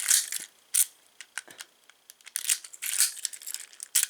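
Metal keys and lock hardware being handled, giving a run of sharp clinks and bright jingles.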